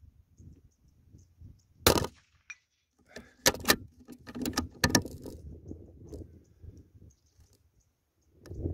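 A single shot from a CZ .22 rimfire rifle firing subsonic .22 LR ammunition about two seconds in, followed a second or so later by a quick run of sharp metallic clicks.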